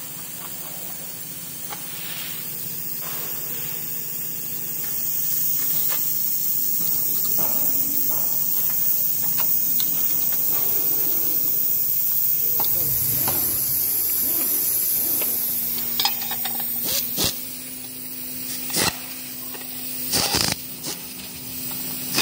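A steady hiss that grows louder through the middle. From about two-thirds of the way in come sharp clicks and clinks of hand tools on metal motorcycle parts.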